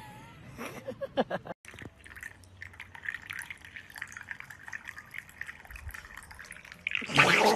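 A dog lapping liquid from a mug held up to it, a fast, irregular run of wet licks and clicks, with a louder burst of noise near the end.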